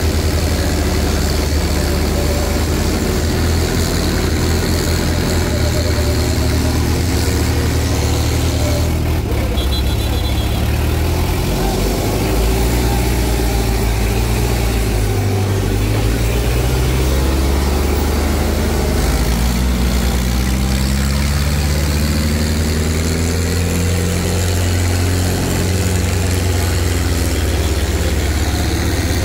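Tractor diesel engines running loudly and continuously, with the engine speed changing and the pitch rising about two-thirds of the way in.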